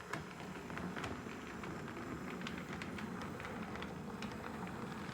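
HO-scale model locomotive running slowly along the track: a steady low motor hum with many small irregular clicks from the wheels on the rails.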